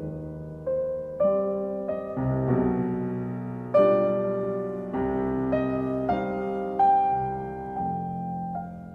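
Slow solo piano music: single notes and chords struck about once a second, each ringing and fading.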